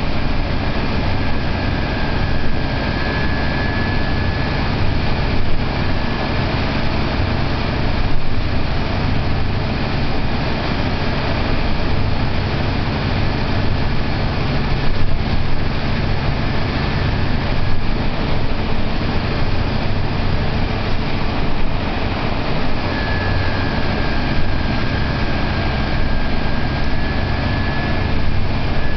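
Scania E300 single-deck bus on the move, heard from the passenger saloon: steady engine drone and road noise with a deep rumble. A thin high whine comes in about two seconds in and again near the end.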